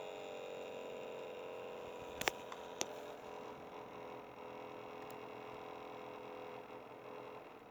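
HP G62 laptop running with a steady hum, two short clicks a little over two seconds in as the power pins on the keyboard connector are bridged, then the hum dies away near the end as the laptop shuts down.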